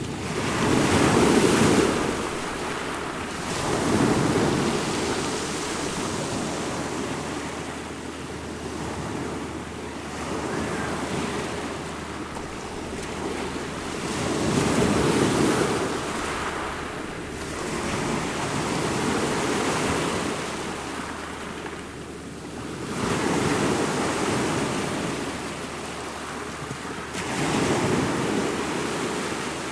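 Ocean waves breaking and washing in, a continuous rushing surf that surges louder every few seconds as each wave comes in and then falls back.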